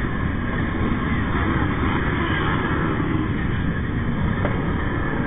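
Motorcycle riding at steady road speed among a large pack of motorcycles: engine and wind noise holding at an even level, with no distinct revs.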